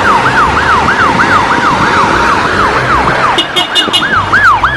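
Ambulance siren sounding a fast yelp, its pitch sweeping up and down about three times a second, over traffic noise. A few short high beeps join in about three and a half seconds in.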